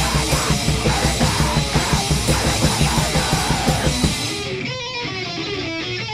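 Live hardcore/metal band playing fast and loud, with distorted guitar, bass and rapid drumming. About four seconds in, the drums and bass cut out and a lone guitar plays a riff by itself.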